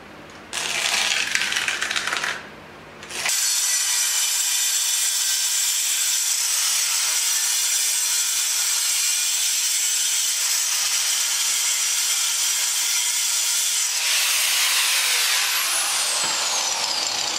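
Angle grinder cutting into old, very hard concrete: a short burst about half a second in, then after a brief pause a long steady cut with a high motor whine. Near the end the grinder is switched off and its whine falls as the disc spins down.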